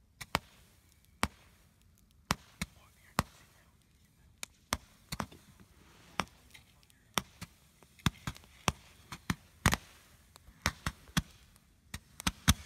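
Fireworks going off: a string of sharp bangs and cracks at irregular intervals, coming faster in the second half.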